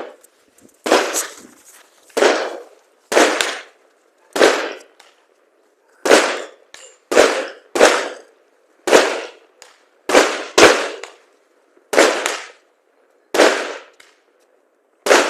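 New Year fireworks going off as a series of sharp bangs, about one a second with the odd quick double, each fading away briefly, like a multi-shot firework battery firing shot after shot.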